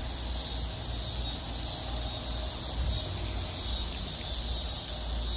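Steady high-pitched drone of insects chirping in the background, with a low steady rumble underneath.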